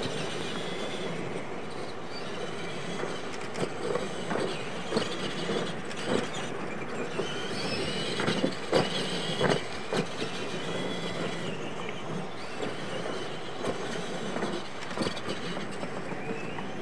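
Several electric R/C monster trucks racing on dirt: their motors whine, rising and falling in pitch with the throttle, over the hiss of tyres in the dirt. Scattered sharp thumps come as the trucks hit and land off the ramps.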